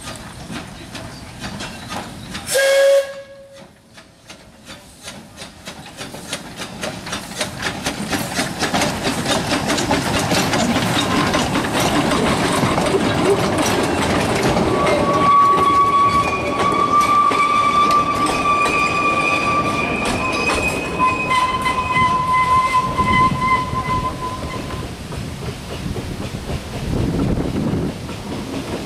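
A narrow-gauge steam locomotive gives a short whistle about three seconds in, then pulls its passenger train away, its exhaust beats quickening. The carriages clatter past over the rail joints, and from about halfway long high squeals ring out for several seconds, typical of wheel flanges grinding on curved track.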